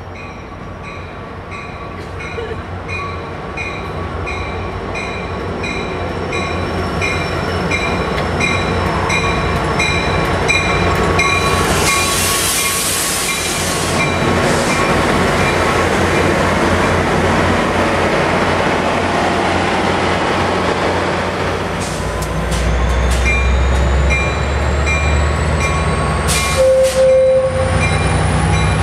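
Amtrak Pacific Surfliner train with its F59PHI diesel locomotive at the platform. A bell rings steadily, about two strokes a second, under a diesel rumble, with a loud burst of air hiss about twelve seconds in. Near the end the engine rumble grows louder, with a few sharp clanks, a short tone and a rising whine.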